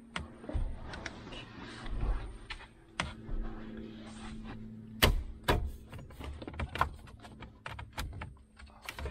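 Plastic dash parts under the dashboard of a Ford F-150 being pushed and forced into place: a run of irregular clicks and knocks, the loudest about five seconds in, over a faint steady hum.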